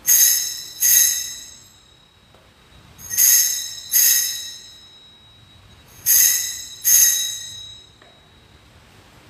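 Small altar bell rung at the elevation of the host after the consecration, in three pairs of strokes. Each stroke is a high, bright ring that dies away over about a second.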